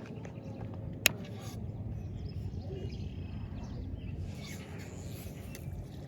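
Steady outdoor background noise with one sharp click about a second in, the loudest sound here.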